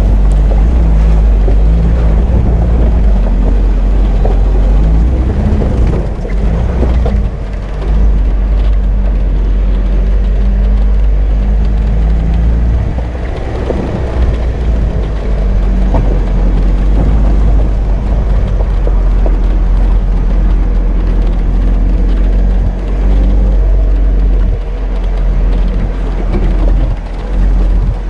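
Off-road vehicle driving slowly over a rough track: the engine runs steadily under a deep rumble, with scattered knocks and rattles.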